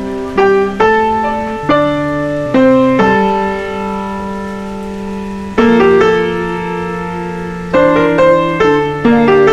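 Background music: slow piano chords, struck every second or so and left ringing, with one chord held for a couple of seconds in the middle.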